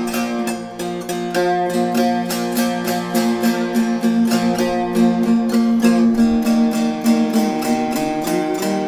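A six-string polusaz, a Bosnian long-necked lute, being played solo: quick, even strokes of the plectrum over ringing drone strings, with a few notes bent in pitch near the end.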